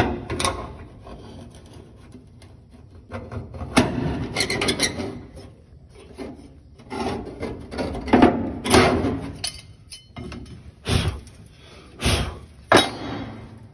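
A square dragged along rusty sheet steel, scraping a scribe line into the inner wheel well. It comes as a series of rough scraping strokes in irregular spells.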